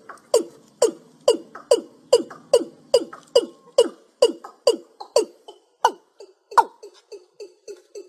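Watercock (cúm núm) call played as a bird-trapping lure recording: a steady series of short hollow notes, each falling in pitch, a little over two a second. From about six seconds in it changes to shorter, quicker notes, about five a second.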